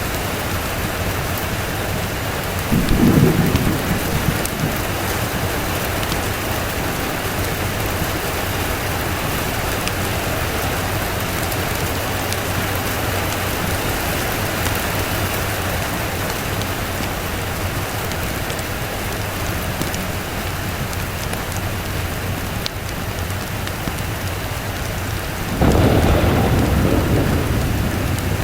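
Steady rain falling, with two rolls of thunder: a short rumble about three seconds in and a longer, louder one near the end.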